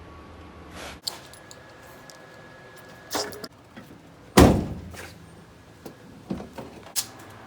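Scattered knocks and clunks, with one heavy thud about four and a half seconds in.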